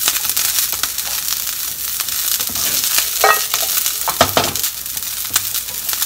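Garlic sprouts sizzling in hot oil in a nonstick frying pan as a wooden spatula stirs and tosses them. Scattered clicks and scrapes of the spatula on the pan, with a few louder knocks a little past halfway.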